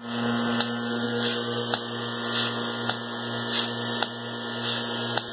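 Milking system running its clean-in-place wash: a steady electric hum from the vacuum pump motor, with a faint click a little more than once a second.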